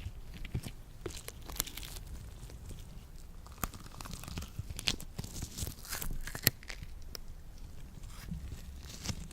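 Latex-gloved hands coated in lotion, rubbing and pulling apart with sticky, crackling clicks and peeling sounds at an irregular pace, sharpest about six and a half seconds in.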